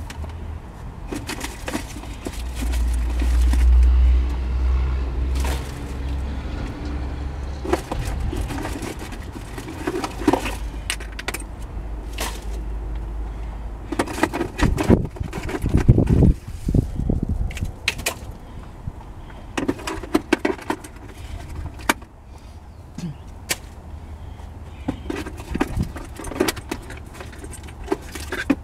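Belongings being rummaged through and pulled out of a pickup truck's rear cab: plastic bags rustling, with scattered clinks, clunks and knocks of objects being handled. A low rumble runs for a few seconds near the start and again about halfway through.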